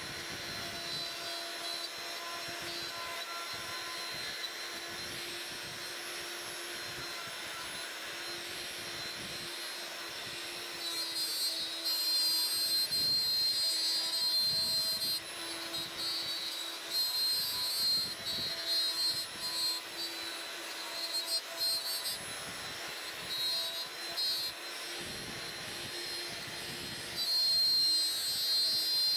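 CNC router spindle cutting wood while a shop vacuum draws dust through the router's dust shoe: a steady whine of motors and suction. From about a third of the way in the sound grows louder in stretches with a sharper high whine, loudest near the end.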